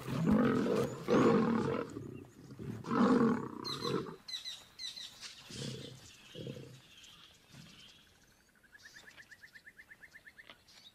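Two male lions fighting, growling and roaring in loud bursts for about four seconds, then a few quieter growls as the scuffle breaks off.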